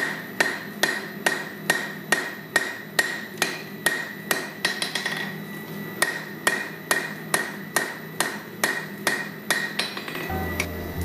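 Hand hammer striking a red-hot 3/4-inch (20 mm) round-bar chain link on the horn of a steel anvil, about two blows a second with a short pause midway. The anvil rings between blows.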